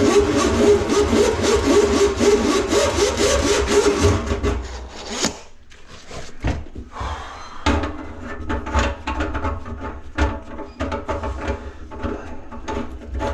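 A power tool running loudly with a rapid, even chatter, stopping about four and a half seconds in, followed by scattered clicks and knocks of tools and parts being handled.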